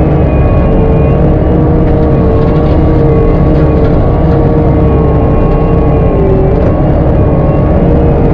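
Virnig disc mulcher spinning, with the carrying machine's engine running under load: a steady loud rumble with a wavering whine on top, which sags in pitch briefly about six and a half seconds in.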